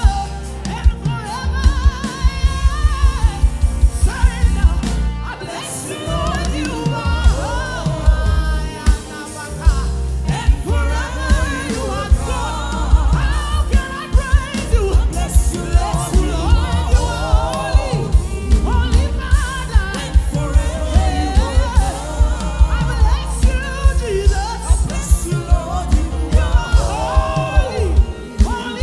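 Live gospel worship music: singing over a full band with a steady drum beat.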